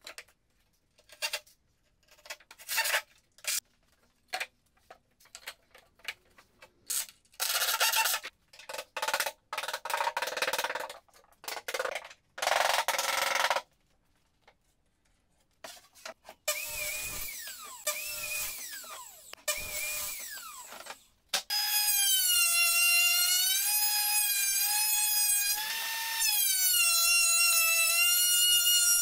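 Woodworking with power tools: irregular short bursts of scraping or cutting noise over the first half, then an electric drill whining in long runs, its pitch dipping and recovering as it bogs under load and speeds up again.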